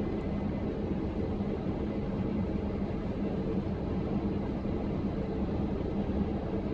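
Combine harvester running steadily as heard from inside its cab while it unloads grain on the go through its auger, a constant drone with a low hum.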